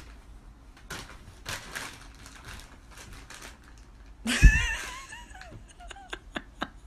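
Soft rustling and small clicks of bedding. About four seconds in a baby gives a high-pitched squeal with a low bump, followed by a few short babbling calls that fall in pitch.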